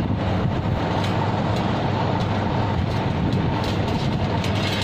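Steady machinery drone with a constant low hum and a faint high tone, with a few light clicks over it.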